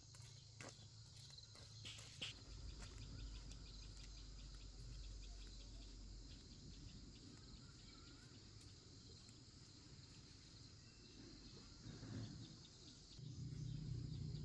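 Faint insect chorus, a steady high chirring with fine regular pulses, over a low rumble that gets louder near the end.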